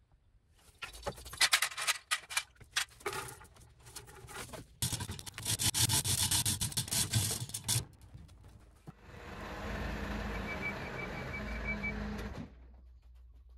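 Metal chain rattling and clanking as the hand chain of a manual chain hoist is pulled hand over hand, in two stretches, the second a fast continuous rattle. Then a machine runs steadily with a low hum for about three seconds and cuts off abruptly.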